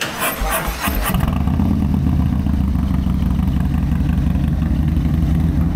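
Harley-Davidson Milwaukee-Eight 117 V-twin with a Bassani 2-into-1 Super Bike exhaust being started: about a second of starter clatter, then it catches and settles into a steady idle.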